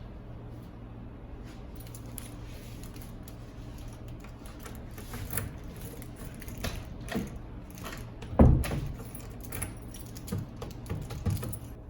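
Metal clinks and knocks of a smart door lock and its keys being handled, with one louder knock about eight and a half seconds in.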